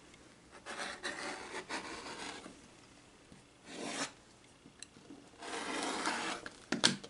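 Rotary cutter blade rolling through a pieced star quilt block along the edge of an acrylic ruler on a cutting mat, trimming the block to size: three cutting strokes, a longer one about a second in, a short one near the middle and another near the end, then a light click.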